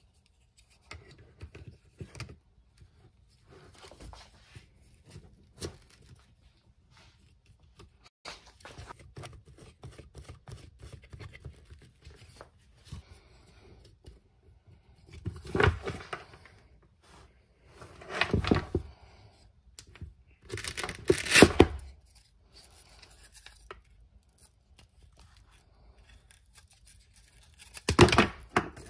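Plastic helmet light and rail being handled, with scattered small clicks and scrapes. Four louder rips, about halfway through, twice more shortly after and once near the end, like hook-and-loop fastener on the helmet being pulled apart.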